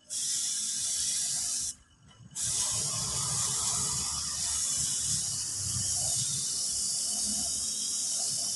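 Sagola HVLP spray gun hissing as it sprays a coat of paint, the trigger let off for about half a second near two seconds in and then held again steadily.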